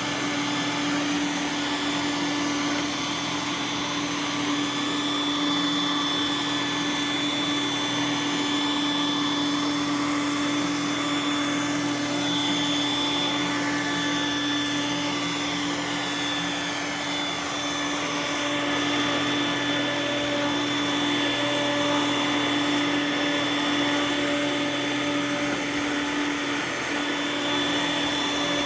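Roomba s9 robot vacuum running steadily: a constant motor hum with a high, steady whine.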